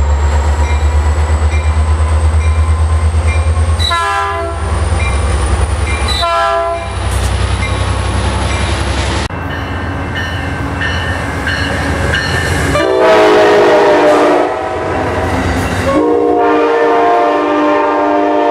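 Diesel locomotive running with a deep pulsing throb, broken by two short horn blasts about four and six seconds in. After a cut, a diesel locomotive's multi-tone air horn sounds two long blasts as a passenger train passes.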